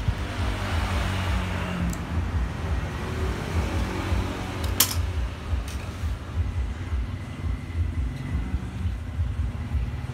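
A motor running steadily with a low, pulsing rumble, and a single sharp click about five seconds in.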